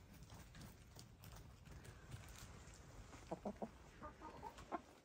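Dust-bathing hens giving a few soft, short clucks in the second half, over a faint scratchy rustle of dirt.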